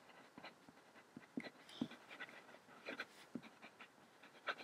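Faint, irregular scratching and tapping of a pen writing on paper.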